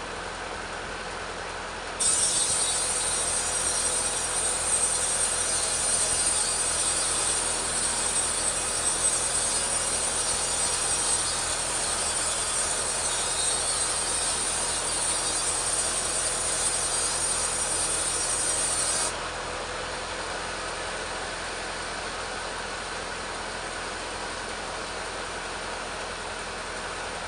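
Two-stroke petrol chainsaw ripping a teak log lengthwise. It idles, jumps to full cut about two seconds in with a loud hissing chain noise, then drops suddenly back to a steady idle after about seventeen seconds.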